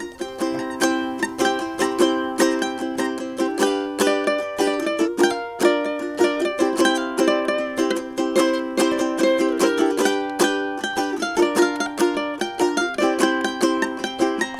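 Solo ukulele playing a fast run of evenly picked notes.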